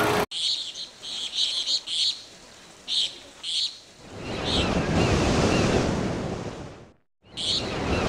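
Nature soundtrack of short bird chirps repeating in quick clusters, with a swelling wash of surf-like noise in the middle. The sound drops out briefly near the end, then the chirps and wash return.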